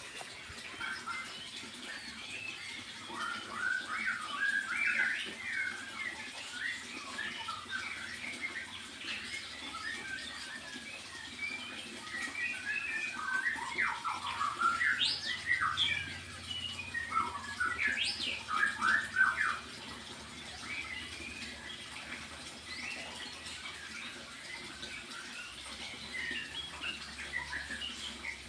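A small songbird chirping and calling in quick runs of short, sharp notes, busiest around the middle.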